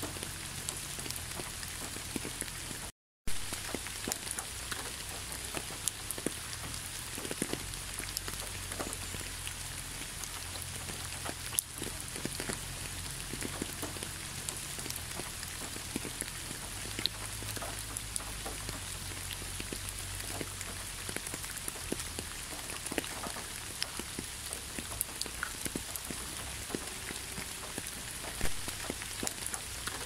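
Steady rain falling on a hard surface, a continuous hiss scattered with individual drop ticks. The sound cuts out for a fraction of a second about three seconds in and resumes with a sharp tick.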